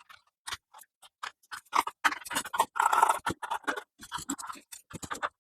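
A screwdriver backing out the base-panel screws of a Dell Alienware M16 R2 laptop: a run of small quick clicks and scratches, densest in the middle.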